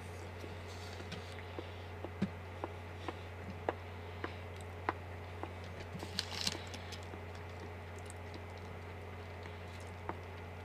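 Eating close to a microphone: a man chewing and handling a whole potato with its skin on, making scattered small clicks and taps, with a brief cluster about six seconds in, over a steady low hum.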